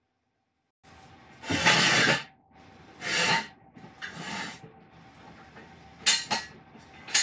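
A steel Craftsman 3.5-ton jack stand scraped across a concrete floor three times as it is shifted into place under the pinch weld. Near the end come a few sharp metallic clicks as its ratcheting post is handled and raised toward the weld.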